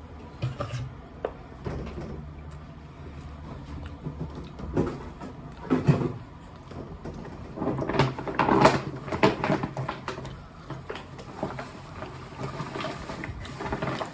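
Irregular clicks, knocks and rustles of close handling while eating, loudest in a cluster about eight to ten seconds in.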